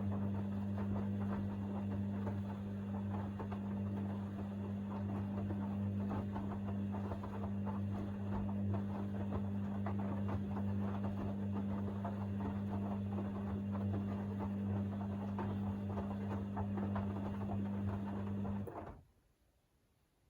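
Hoover DynamicNext washing machine in its main wash: the drum turning with a steady motor hum and the patter and slosh of wet laundry and water tumbling inside. The drum stops suddenly about nineteen seconds in, a pause between tumbling turns.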